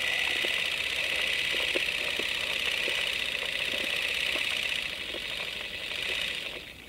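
A small machine running steadily with a fast, even whirr and clatter, dropping in level near the end.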